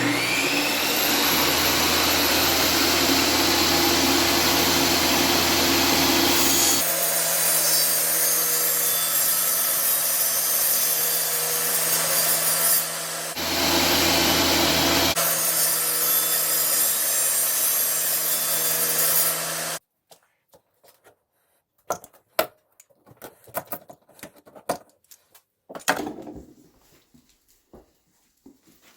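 Power saw cutting vinyl plank flooring: the motor spins up with a rising whine and runs steadily for about twenty seconds, its low hum dropping out and coming back as it cuts. It then stops suddenly, and a scatter of light clicks and knocks follows.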